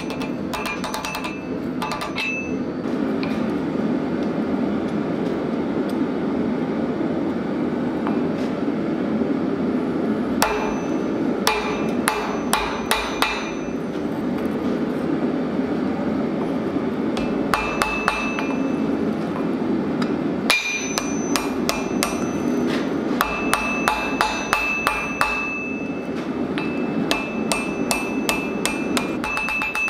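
Hand hammer striking a red-hot steel bar on an anvil, bending it into a hook's curve, in quick runs of blows separated by pauses, the anvil ringing with a high tone. A steady low rush runs underneath.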